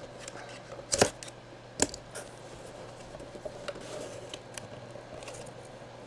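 Cardboard box being handled and opened: a few sharp knocks in the first two seconds, then quieter scraping and rustling of the packaging.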